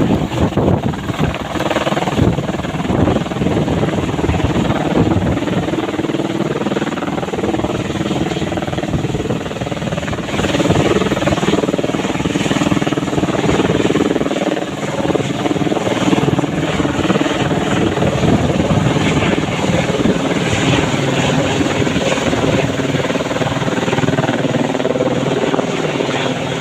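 Helicopter flying close by, its rotor and engine running steadily with a rapid low beat from the blades, a little louder from about ten seconds in.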